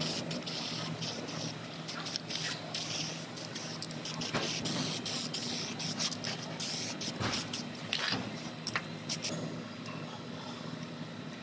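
Aerosol spray can hissing in repeated short bursts as it coats sheet-metal panel flanges, with scattered clicks; the hiss dies down near the end.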